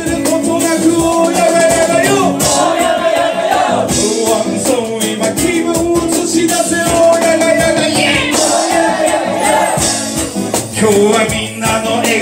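Live band music: a strummed acoustic guitar and drums, with a man singing a reggae-style song into a microphone.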